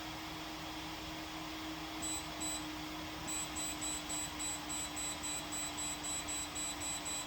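Control panel of a Vevor ultrasonic cleaner beeping as its temperature setting is being set. Two short high beeps about two seconds in, then a fast, even run of beeps at about three or four a second, over a steady low hum.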